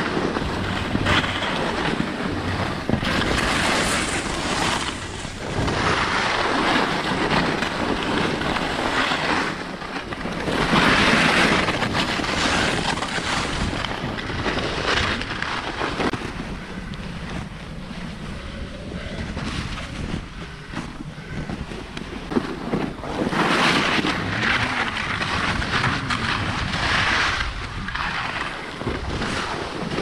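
Ski edges scraping and carving through crisp packed snow, a hiss that swells and fades with each turn, easing off for a few seconds in the middle. Wind rushes over the camera microphone throughout.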